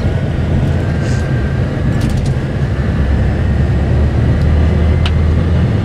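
Steady low rumble of large engines running, with a faint whine that slowly rises in pitch and a few light clicks.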